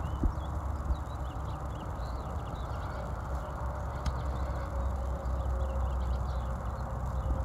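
Small birds chirping over and over, short high calls scattered throughout, over a steady low outdoor rumble.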